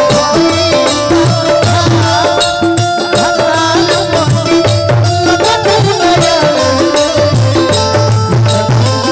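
Live Bhojpuri folk band playing an instrumental interlude: hand drums and shaken percussion keep a steady beat under a wavering melody line.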